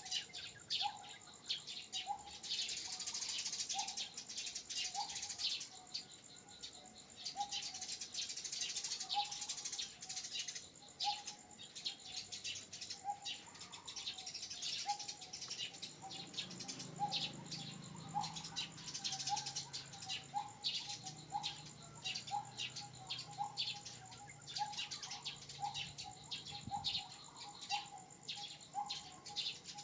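Birds calling and chirping: one bird repeats a short, rising call about once a second, over quick high chirps from others. A faint steady high-pitched tone runs underneath, and a faint low hum comes in around the middle and fades out near the end.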